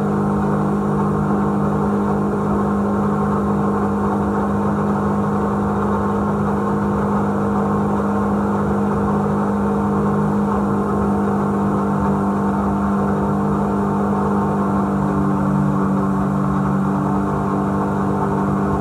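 A 250-horsepower BRP Rotax jet-drive engine in a Hewescraft 180 River Runner jet boat, running steadily under way with an even drone.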